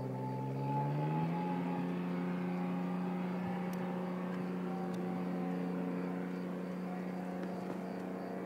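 1996 Ford Thunderbird's V6 exhaust, running through open side pipes with no catalytic converter or muffler. The note climbs in pitch about a second in as the engine revs, then holds a steady drone.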